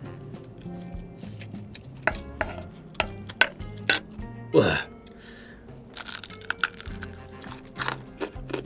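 Background music over the handling of crispy fried chicken on a wooden board: a quick run of sharp clicks and crackles about two to four seconds in, then a brief falling sweep, the loudest sound, about halfway through, and a few lighter clicks near the end.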